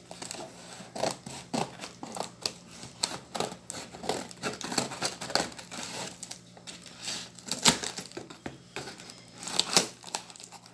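Scissors snipping through plastic wrap and packing tape on a cardboard shipping box, with the plastic crinkling and tearing. Irregular crackles and snips throughout, two of them louder and sharper in the last few seconds.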